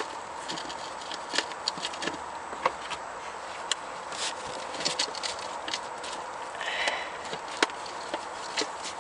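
Scattered sharp metallic clicks and taps of hand tools working the bolts of a transmission oil pan as they are snugged down, irregularly spaced, over a faint steady hum.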